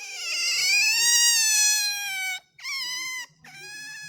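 Pet otter giving high-pitched squealing calls: one long call lasting about two and a half seconds that rises slightly in pitch and falls back, then two shorter calls.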